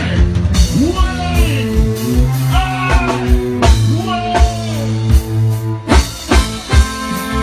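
Live reggae band playing: a drum kit keeping a steady beat under a bass line, with a voice singing over it.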